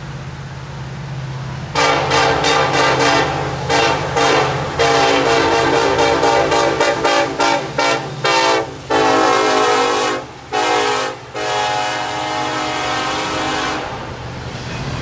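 Diesel locomotive air horn sounding a horn show: starting about two seconds in, a long run of short, choppy toots and a few longer blasts, fading out in the last few seconds. The train's steady low rumble runs underneath.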